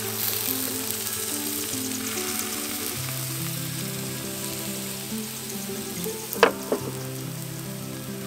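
Thin pancake batter sizzling and frying in a hot cast-iron pan, a steady hiss, with two sharp clicks close together about six and a half seconds in.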